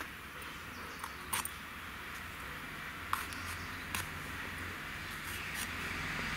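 A few short, sharp clicks and taps from vegetables being cut on a bladed floor stand and the pieces handled. Under them is a steady background hiss that grows louder near the end.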